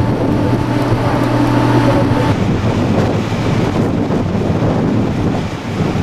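A ferry's engines and ventilation humming steadily, with a few held tones and wind buffeting the microphone on the open deck. A little over two seconds in, the tones drop away, leaving wind noise over a low rumble.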